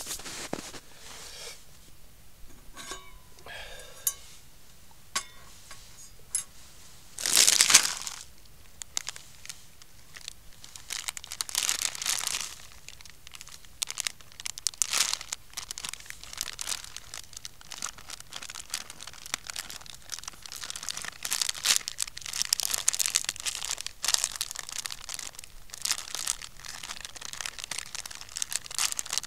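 Plastic packaging being handled and crumpled, crinkling irregularly, with a louder tearing-like rustle about seven seconds in and more bouts of crinkling later on.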